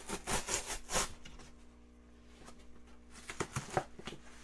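Kraft packing paper rustling and crinkling as it is pulled out of a cardboard shipping box by hand. The crinkling is densest in the first second, then a few sharper crackles come a little over three seconds in.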